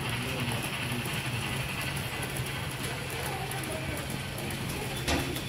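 HO scale model passenger train running past on layout track: a steady low hum with a fast, uneven clicking and rattling of the wheels over the track, and one sharper click near the end.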